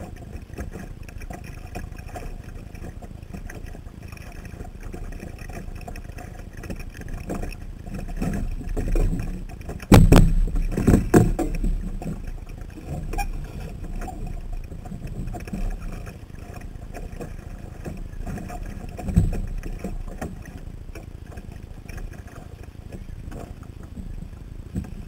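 Water washing against a Sunfish sailboat's hull under way, a steady low rumble as heard through a waterproof camera housing mounted on the boat. A few louder thumps and splashes break in, the loudest about ten seconds in and another about nineteen seconds in.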